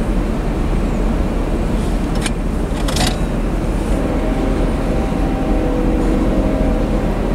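Freight cars of a manifest train rolling past, covered hoppers and then bulkhead flatcars loaded with pipe, with a steady low rumble of steel wheels on rail. There are two sharp clicks two to three seconds in, and a faint steady whine joins after about four seconds.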